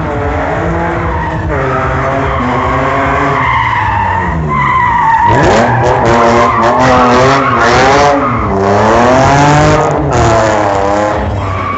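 Stunt car drifting, its engine revving up and down in repeated waves while its tyres screech and skid on the pavement. The tyre screech is loudest from about halfway through.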